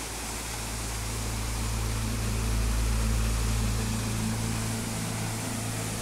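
Waterfall rushing into a rock pool as a steady hiss, with a low rumble underneath that sets in at the start and is loudest about halfway through.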